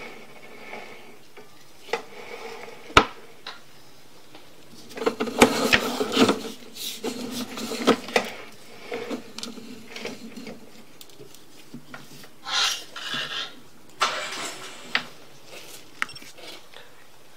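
Handling noise from a sewer inspection camera's push-cable reel as the cable is drawn back: a sharp click, a cluster of rattling knocks about five seconds in, and two short rubbing hisses later on.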